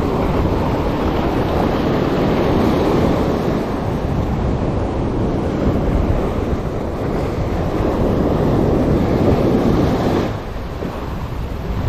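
Ocean surf washing up the beach at the water's edge, a loud rushing wash that swells and eases, with wind buffeting the microphone. The wash drops off a little about ten seconds in.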